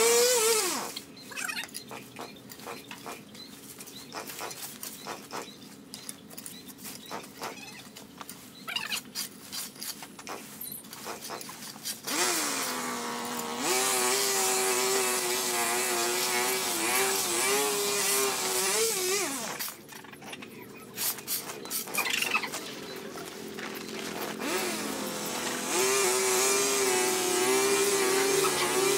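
Small engine of a handheld power tool running in spells: it runs briefly at the start, drops out for about eleven seconds of scattered clicks and crackles, then runs again for about seven seconds with its pitch wavering up and down. It stops for a few seconds of clicks and starts running again near the end.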